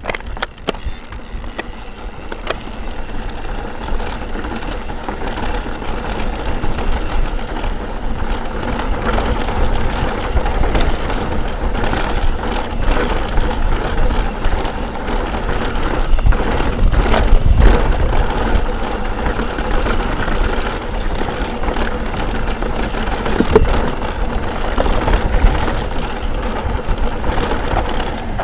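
Mountain bike riding down a rough, rocky trail: tyres rumbling over stones and the bike rattling and clattering throughout. It grows louder over the first half and is loudest a little past the middle.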